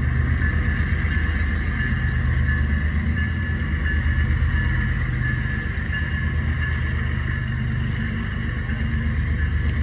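BNSF freight train rolling past, a steady loud rumble of wheels on rail. A thin high squeal comes and goes over it.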